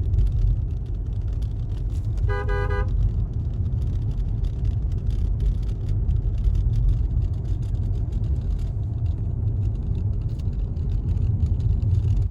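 Steady low rumble of a car on the move, with a short car-horn toot about two seconds in.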